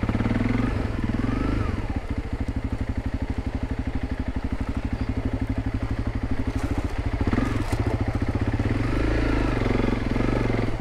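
Honda CRF300 Rally's single-cylinder four-stroke engine running at low revs as the motorcycle picks its way over a rutted mud track. The revs rise and fall with the throttle, about a second in and again near the end.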